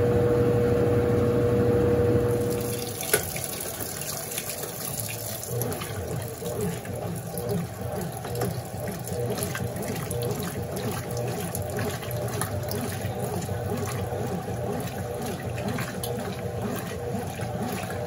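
Consul Super Cargo CWL10A top-loading washing machine ending its spin between rinses: the steady motor whine stops about two and a half seconds in, with a single sharp click just after. Water then pours into the tub, a steady splashing rush, as it fills for the second rinse.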